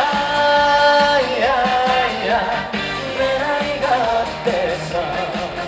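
Live trot medley music played through a PA system: a melody line holds one long note for about a second, then wavers up and down over a steady beat.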